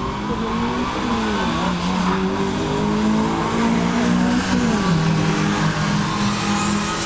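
Drag-racing car engines running hard on the strip, the pitch dropping back sharply at gear changes about a second in and again near five seconds.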